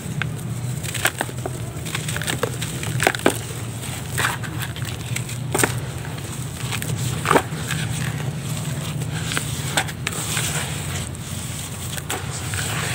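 Dry pure charcoal texture chunks being crumbled by hand and fingers raking through the loose powder and grit in a plastic tub: scattered soft crunches and crackles over a steady low hum.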